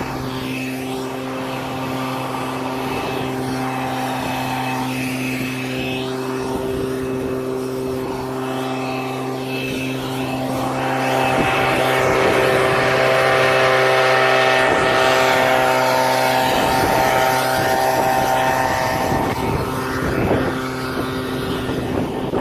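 A motor or engine running steadily at a constant pitch, loud throughout, swelling louder for a few seconds in the middle.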